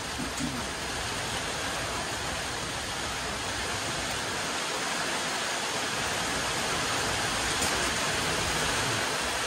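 Steady rain falling, an even hiss with no separate drops or strokes, growing slightly louder toward the end.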